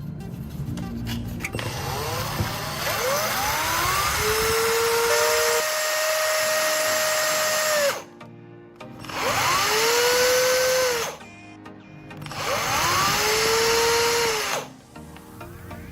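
Small electric power tool sharpening the end of a graphite rod, run three times: each time the motor whine rises quickly in pitch, holds steady over a grinding hiss, then stops suddenly.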